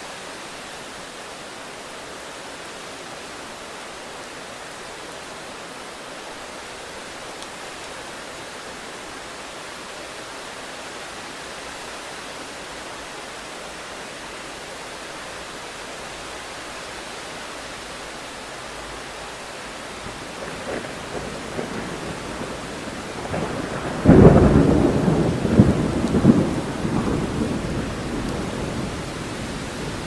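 Heavy rain falling steadily. About two-thirds of the way in, thunder starts to rumble, breaks into a loud clap a few seconds later, and rolls on for several seconds as it fades.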